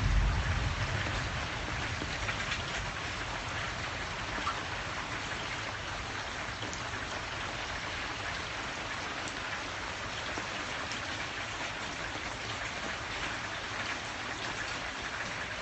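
Steady rain falling, light but consistent. A low rumble dies away in the first second or two.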